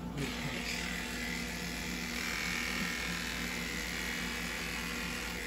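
Electric animal clippers switching on and buzzing steadily as they shave the belly fur of an anaesthetised French bulldog, clipping her abdomen before a caesarean section.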